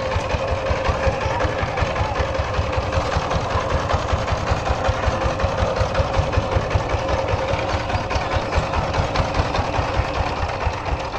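Single-cylinder diesel engine of a walk-behind power tiller chugging steadily as it pulls a loaded trolley, with an even beat of exhaust pulses.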